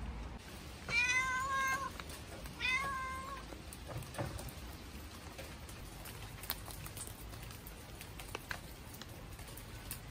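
A feral cat meowing twice: two drawn-out meows about a second apart, the second a little shorter.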